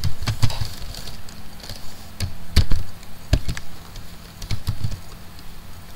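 Typing on a computer keyboard: irregular key clicks, a few of them struck harder near the middle.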